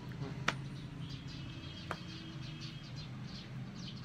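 Rapid, repeated high-pitched chirping, several chirps a second, over a low steady hum, with two sharp clicks about half a second and two seconds in.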